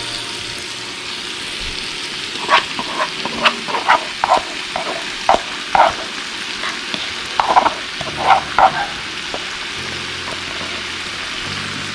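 Sausage frying in a pan: a steady sizzle, with a run of sharp pops and clicks from about two seconds in until around nine seconds.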